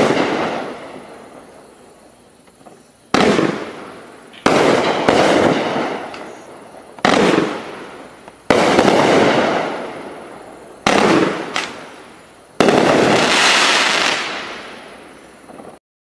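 Multi-shot consumer fireworks cake (Sunwing 'Abe's Legacy') firing shells with strobe and crackle effects. About eight sharp bangs come irregularly, a second or two apart, and each trails off over a second or two.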